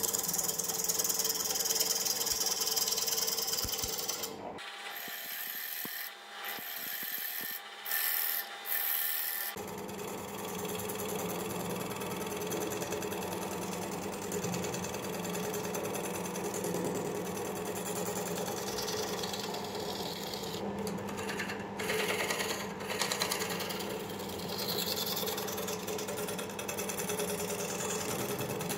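Wood lathe spinning a plum-wood bowl blank while a hand-held turning tool cuts it: a hiss of wood being shaved over the motor's steady hum. The hiss is bright and strong for the first few seconds; the motor hum then drops out for several seconds before the lathe runs on steadily with lighter cutting.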